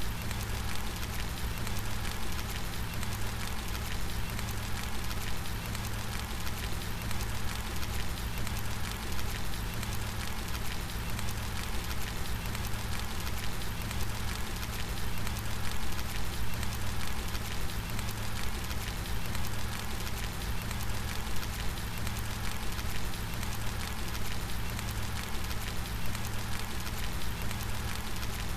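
Steady rain falling, an even hiss of many drops with a strong low rumble underneath, unchanging throughout.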